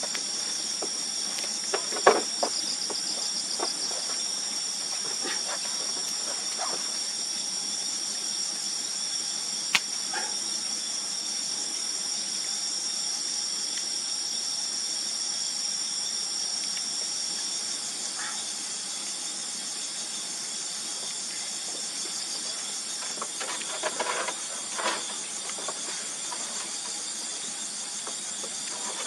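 Steady chorus of insects chirping, high-pitched and continuous, with a few scattered knocks and clicks now and then.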